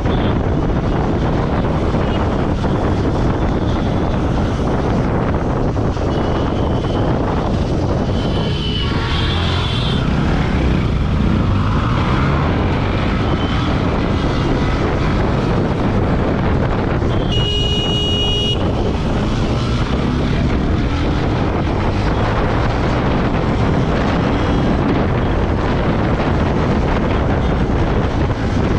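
Motorcycle riding through city traffic: steady engine and road noise mixed with wind buffeting the mic. About two-thirds of the way in, a vehicle horn sounds for about a second.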